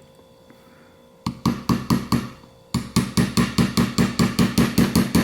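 Small hammer tapping a 3/32 pin punch to drive a trigger pin partway out of a Sig P320 fire control unit, metal on metal. A short run of quick taps starts just over a second in, then after a brief pause steady taps follow, about five a second.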